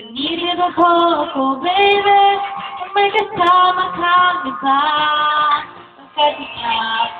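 A woman singing into a handheld microphone: long held notes that step up and down in pitch, in phrases with short breaks between them.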